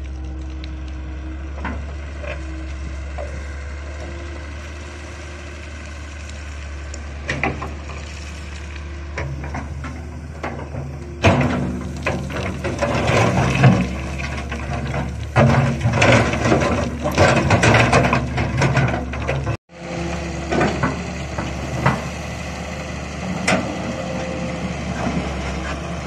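Hitachi wheeled excavator's diesel engine running steadily while its bucket digs into stony gravel. Stones and gravel scrape and clatter against the bucket loudly for several seconds from about halfway in, then more lightly after the sound breaks off for an instant.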